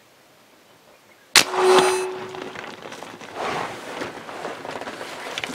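A single sharp shot from a .50 caliber big-bore PCP air rifle (Air Venturi Dragon Claw) firing an Air Bolt arrow, about a second and a half in, with a brief ringing tone after it. Then a few seconds of scuffling and rustling as the hit wildebeest bolts through the brush.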